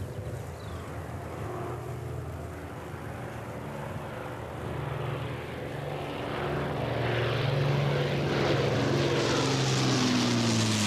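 Avro Lancaster bomber's four Rolls-Royce Merlin piston engines droning as it approaches low and grows louder, then sweeps overhead with the engine pitch falling as it passes near the end.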